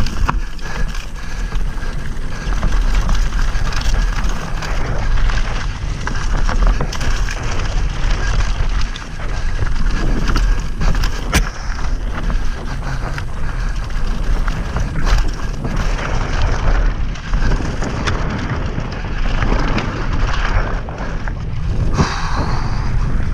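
Merida eONE SIXTY 900E electric mountain bike ridden fast over a dirt singletrack: a constant low rumble of wind buffeting the microphone and tyres on the dirt, with frequent knocks and rattles of the bike over bumps.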